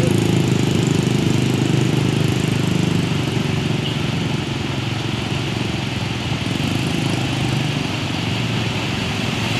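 Diesel engine of a tractor truck pulling an empty container chassis, running steadily at low speed as it drives through flood water, over a constant wash of water and traffic noise.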